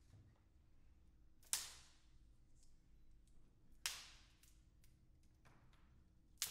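Three sharp cracks of wooden sticks being bent until they snap, each ringing out briefly in the hall, with faint small ticks and rustles between them.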